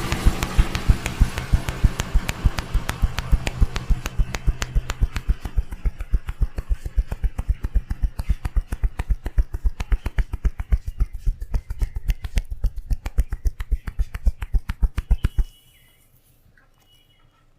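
A barber's hands tapping rapidly and rhythmically on a head during a tapping head massage, several strikes a second, stopping suddenly about fifteen seconds in.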